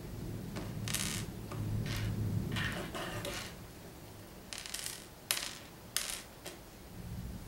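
Small plastic Lego pieces clicking and clattering as they are handled and pressed together, with brief rustles of the instruction booklet's pages; the two sharpest clicks come about five and six seconds in.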